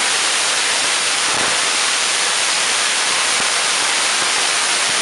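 6-inch spark gap Tesla coil running, its arcs from the toroid and side breakout point making a loud, steady hiss of sparks. The side breakout arcs reach about four feet.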